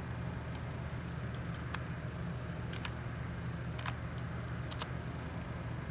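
Steady low mechanical hum, with a handful of faint light clicks scattered through it.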